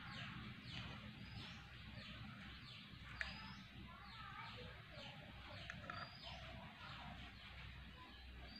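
Faint bird chirps, a run of quick falling chirps repeating every half second or so, with a light clink of the fork on the plate about three seconds in.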